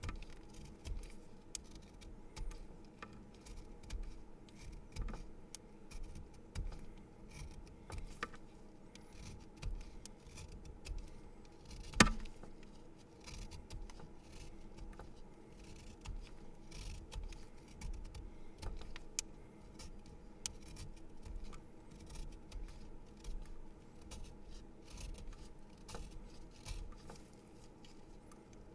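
A pencil being sharpened: a run of small irregular scraping clicks as the wood and lead are cut, with one sharp knock about twelve seconds in.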